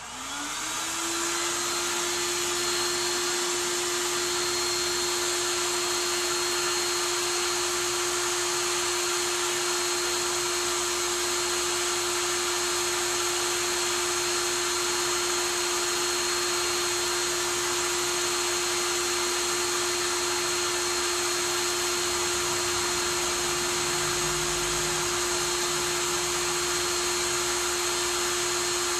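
Cordless power tool's electric motor spinning up and then running at a steady high speed with a constant whine, held on a tractor wheel nut to undo it.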